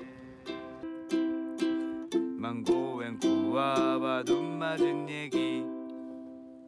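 Ukulele strummed in a steady rhythm, about two strums a second, a chord being practised; a voice briefly sings along in the middle, and the last strum rings out and fades near the end.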